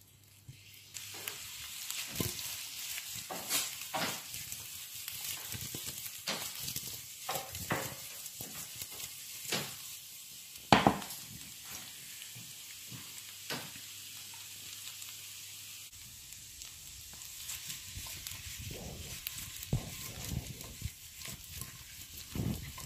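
Boiled baby potatoes frying in butter in a non-stick pan: a steady sizzle with scattered pops and crackles, and a silicone spatula turning them now and then. One sharper click stands out about halfway through.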